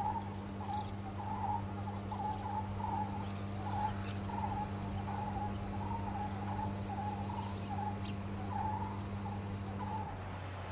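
A series of short, wavering hoot-like calls, roughly one a second, over a steady low hum; the calls stop near the end.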